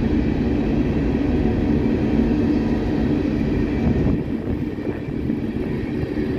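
Herzog ballast hopper cars rolling past with a steady rumble and rush, the stone ballast pouring out of the hoppers onto the track as they go.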